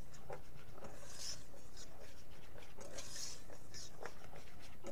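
Soft handling noises of kitchen containers and packaging on a countertop: scattered light taps and clicks with a couple of brief rustling scrapes, over a steady low background hum.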